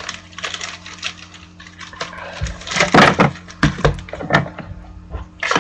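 A small trading-card box and the cards inside being handled and opened by hand: a run of rustles, scrapes and clicks, loudest about three seconds in, then a few single clicks.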